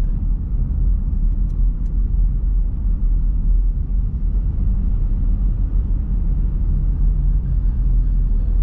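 Steady low rumble of a car driving, road and engine noise heard from inside the cabin, with a few faint clicks about a second and a half in.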